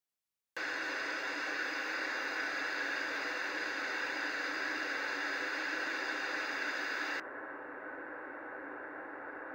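Television static hiss, a steady white-noise rush that starts suddenly about half a second in. A bit after seven seconds it turns quieter and duller, its high end cut away.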